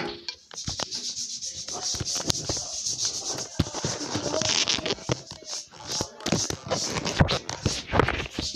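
Handling noise: the phone's microphone rubbing and scraping against clothing as the phone is held and moved, with many small clicks and knocks.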